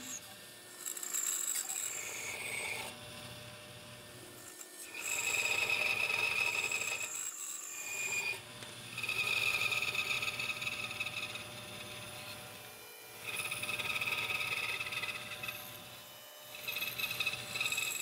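Wood being worked with a tool in repeated passes of a few seconds each, a scraping, rasping sound with short pauses between passes.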